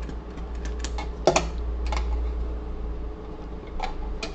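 Irregular light clicks and taps from handling things at an electronics workbench, with one louder knock a little over a second in, over a steady low hum.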